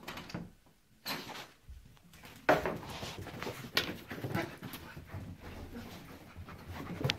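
Pit bull terrier making short, irregular sounds as it races around on carpet in post-bath zoomies. The sharpest sound comes about two and a half seconds in.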